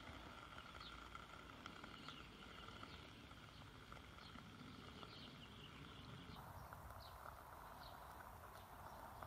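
Near silence: faint outdoor background with faint short high chirps every second or so. A soft, steady hiss starts about six seconds in.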